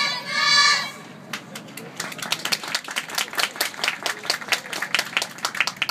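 A loud raised voice calls out briefly, then a crowd applauds. The clapping starts sparse, becomes dense and runs on.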